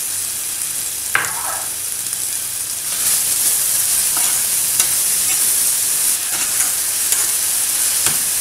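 Chopped onion sizzling in hot oil in a metal saucepan while a spatula stirs it, with scattered clicks and scrapes of the spatula against the pan and one ringing knock about a second in. The sizzle gets louder about three seconds in.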